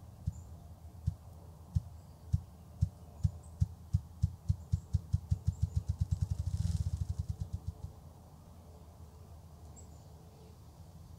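Male ruffed grouse drumming on a log in his mating display: deep, low wingbeat thumps begin slowly, less than a second apart, then quicken steadily into a fast whir that swells and then stops about eight seconds in.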